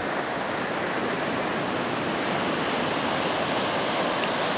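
Ocean surf breaking on a sandy beach, a steady wash of noise.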